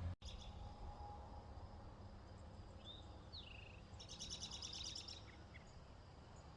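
Songbirds calling against faint outdoor ambience. A couple of short sliding chirps come about three seconds in, then a fast, high chattering trill for about a second, followed by a few single chirps.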